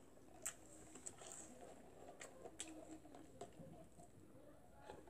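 Near silence with a few faint, sharp mouth clicks and lip smacks from eating and sipping through a straw.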